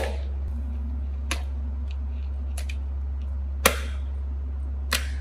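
Live paddy-field crabs dropped one by one into a plastic bowl, each landing with a sharp clack, about five times at uneven intervals.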